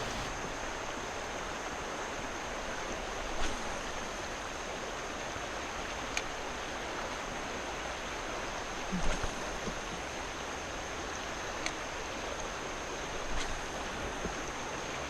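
River rapids rushing steadily past a kayak, with a few short faint knocks at intervals.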